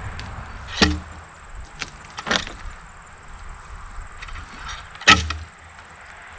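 A few sharp wooden knocks and thuds as a heavy log is worked up a ramp onto a sawmill deck, the loudest about five seconds in.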